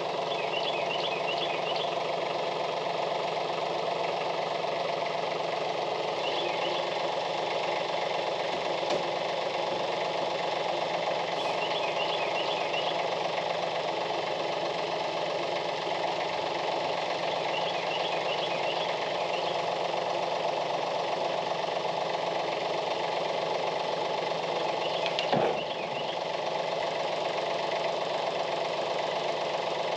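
Branson 2515 compact tractor's diesel engine running steadily while the loader and boom pole hold a roof truss. Short high chirps come and go several times, and a single brief knock sounds near the end.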